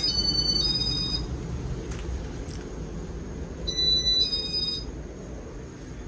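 Casablanca Spirit of Saturn ceiling fan running and slowing, its whir growing quieter. Two short runs of high electronic two-tone beeping sound over it, one at the start and one about four seconds in.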